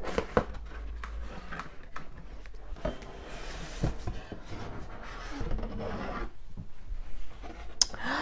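Cardboard box being opened by hand: the lid rubbing and scraping against the box as it is pulled up and off, with scattered sharp clicks and taps from the cardboard.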